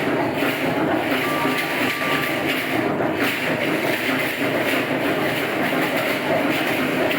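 Aztec dance percussion: a dense, continuous rattling that keeps up at an even loudness.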